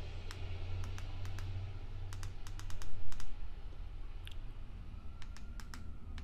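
Irregular small clicks of remote-control buttons being pressed, often two or three in quick succession, over a steady low hum. A louder dull bump about three seconds in.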